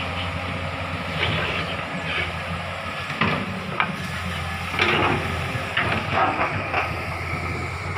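Komatsu hydraulic excavator's diesel engine running steadily under load, with intermittent sharp cracks of branches and timber breaking as it clears felled trees.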